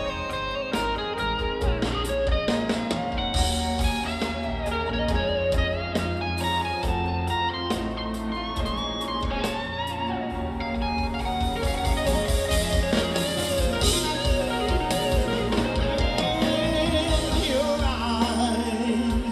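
Live band playing an instrumental passage of a soft soul-jazz ballad: a melodic guitar lead over bass, drums and keyboards, with some singing.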